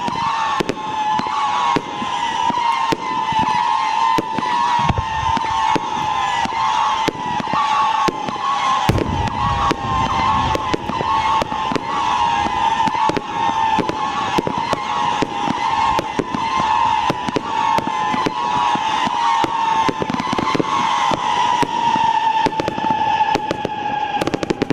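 Evolution Fireworks Supersonic screeching cake firing: a loud, continuous screech from many overlapping whistling shots, held near one slightly wavering pitch, over a steady stream of sharp launch shots and small crackling bursts about two or three a second. The screeching cuts off abruptly at the end as the cake finishes.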